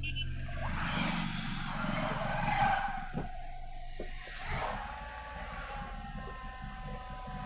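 Road and traffic noise heard from inside a moving car, swelling as motorcycles pass close by, with a couple of sharp knocks about three and four seconds in. From about halfway through, a steady pitched tone holds above the road noise.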